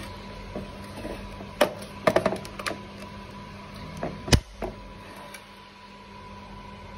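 Clicks and knocks from handling a Chinese copy of a Husqvarna 372 XP chainsaw with its engine off. Its housing and bar rattle and bump on a tile floor in a few short knocks, the loudest about four seconds in, over a faint steady hum.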